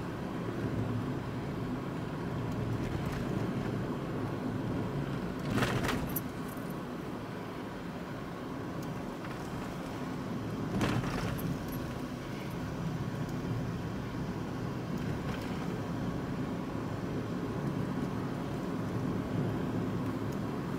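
Electric car driving on a narrow paved road, heard from inside the cabin: a steady rumble of tyres on the road surface. Two brief knocks stand out, about six seconds in and again about five seconds later.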